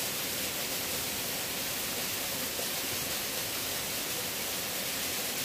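Steady rush of stream water: an even, unbroken hiss with no separate splashes or knocks.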